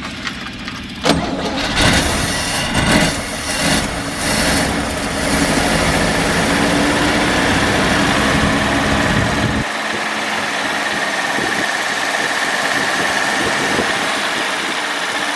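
Cold motorhome engine with a rebuilt one-barrel Rochester carburetor running on its closed choke, on its first run after sitting dormant for over 20 years. It surges unevenly a few times in the first few seconds, then runs steadily.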